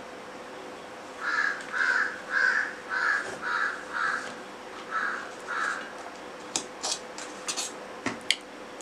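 A crow cawing about eight times in a steady series of short calls. Then, a little past the middle, come several sharp clinks of spoons on steel plates.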